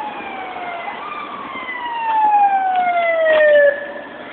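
Fire engine siren wailing: its tone slides down, jumps back up about a second in, then falls slowly for nearly three seconds, growing louder, before cutting off abruptly near the end.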